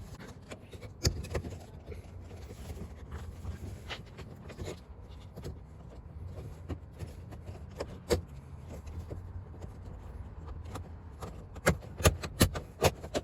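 Plastic interior door bezel trim being fitted, with scattered clicks and rubbing as it is handled. A run of sharp clicks comes near the end as the bezel's delicate clips pop into place, over a low steady hum.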